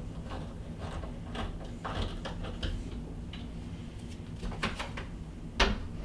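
Hand screwdriver driving a wood screw through a door latch's faceplate into the door edge, a series of short scraping creaks as the screw is turned. Near the end, a sharp click as the door is pushed to close.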